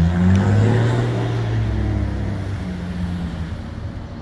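Electric motor of an aluminium exterior roller shutter running, a steady low mechanical hum that slowly grows quieter over the first few seconds.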